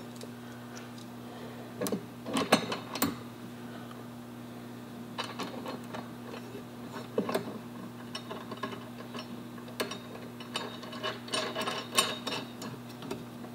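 Small metal clicks and clinks of a bolt, flat washer, lock washer and nut being fitted by hand to a steel nerf bar mounting bracket, in a few scattered clusters. A steady low hum runs underneath.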